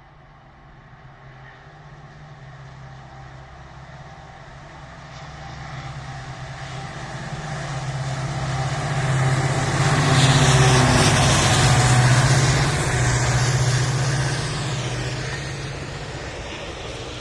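WDP4D diesel locomotive's 16-cylinder two-stroke EMD engine humming as it pulls a passenger train out of a station. A low steady hum builds and is loudest with added wheel-and-rail noise about ten to thirteen seconds in as it passes close, then eases off.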